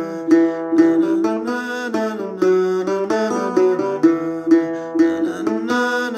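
Acoustic guitar in standard tuning playing an original tune in E dorian: picked notes and chords ringing into one another, with a fresh attack two to three times a second.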